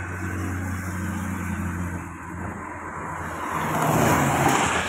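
A truck's engine running as it approaches and passes close by. It grows louder to a peak about four seconds in, with a rush of tyre and wind noise.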